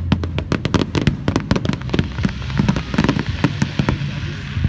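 Fireworks crackling: a rapid, irregular string of sharp pops, with a hissing spray joining in about two seconds in and fading near the end.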